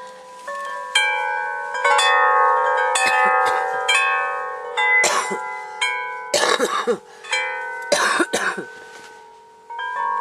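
Chimes ringing, with many overlapping struck notes that die away slowly. Three short breathy bursts cut through them about halfway in and again near the end.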